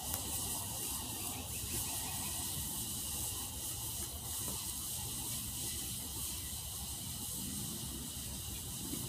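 Steady outdoor woodland ambience: an even high hiss over a low rumble, with a few faint rustles.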